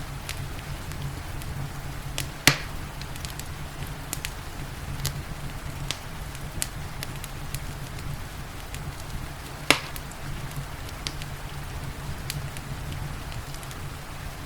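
Wood fire crackling with scattered small snaps and two louder pops, one about two and a half seconds in and one near ten seconds, over a low steady rumble and the even hiss of rain.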